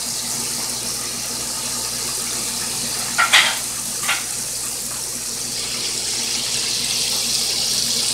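Chicken pieces deep-frying in a pot of hot oil: a steady bubbling sizzle that grows a little louder near the end. A couple of short sharp pops come about three and four seconds in.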